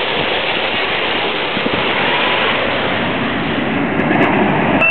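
Steady rushing vehicle noise, road and engine sound heard from inside a car, with a little more low rumble near the end.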